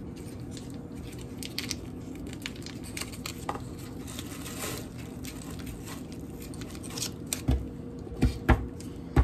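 Foil wrapper of a cream cheese block crinkling and crackling as it is handled and picked open. Near the end come a few dull thumps, the loudest sounds.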